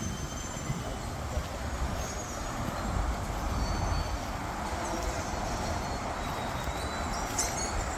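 Steady outdoor rumble of road traffic, a noisy hum with no clear engine note, and a few faint high whistles over it.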